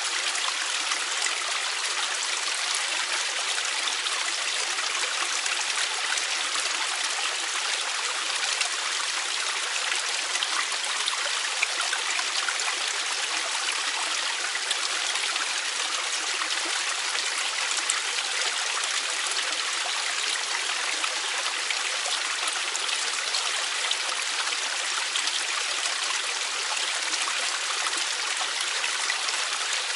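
Valley stream flowing steadily: an even, unbroken rush of water with no lulls or distinct splashes.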